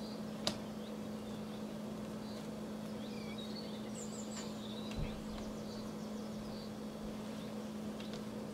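Hands handling soft proofed bread-dough balls on a plastic-wrapped baking mat: a light tap about half a second in and a soft thump about five seconds in, over a steady low hum and a few faint high chirps.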